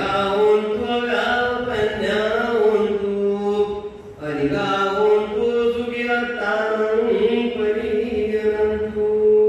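A man chanting Buddhist verses into a microphone in long, melodic held phrases, with a short break for breath about four seconds in.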